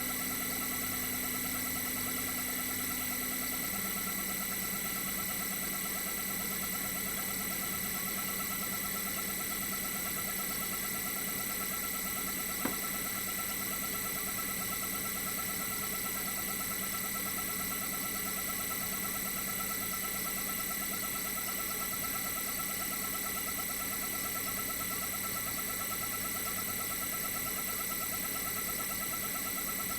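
Toshiba twin rotary inverter compressor running steadily, with a high electronic whine made of several steady tones over a lower hum. About four seconds in, the hum drops a step in pitch, and there is a single short click about halfway through.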